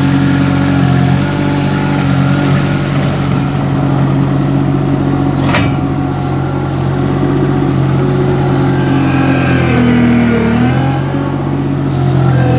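MultiOne articulated mini loader's engine running steadily as the machine drives. Its pitch dips briefly and recovers about ten seconds in, with a single sharp click near the middle.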